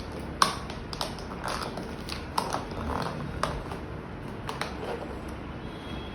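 Irregular clicks, taps and light knocks of hard items being handled and set down during unboxing, the sharpest about half a second in.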